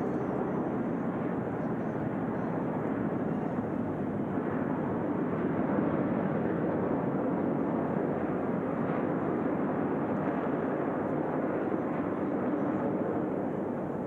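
Jet aircraft of the Frecce Tricolori display team, Aermacchi MB-339s, heard as a steady rushing rumble that swells slightly midway and eases off near the end.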